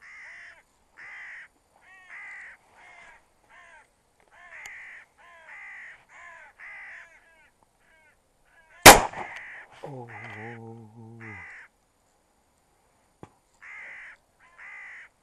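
Crows cawing repeatedly, about one caw a second, with a single shotgun blast about nine seconds in. Right after the shot, a low, drawn-out voice-like call lasts about two seconds while the cawing goes on.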